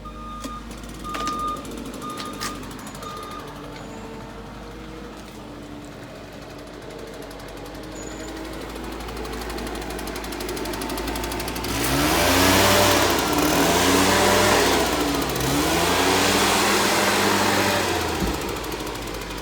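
Bulldozer's diesel engine running, with a reversing alarm beeping steadily for the first few seconds. About twelve seconds in, the engine revs up hard under load, its pitch rising and falling for several seconds before easing back.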